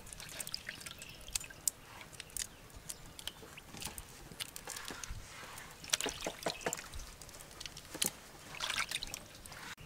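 Scattered small wet clicks and drips as raw shrimp are peeled and deveined with a small knife over a metal colander.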